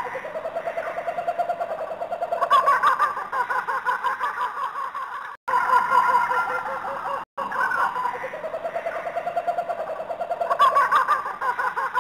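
Recorded animal calls played on a loop for a robotic animal display: a rapidly pulsing, trilling call that repeats about every eight seconds, cut by brief drop-outs.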